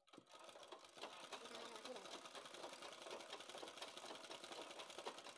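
Flat-bed sewing machine running steadily while stitching a leather sandal-upper strap: a fast, even rattle of needle strokes that starts abruptly and carries on without a break.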